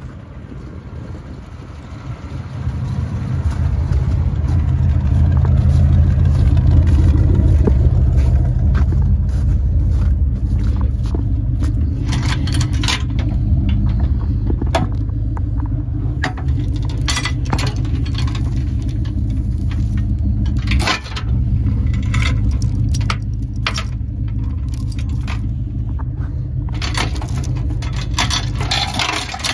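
1968 Dodge D300 tow truck's engine running, building up about two seconds in and then holding steady, with a brief dip about two-thirds of the way through. Sharp rattles and clinks come in from about halfway.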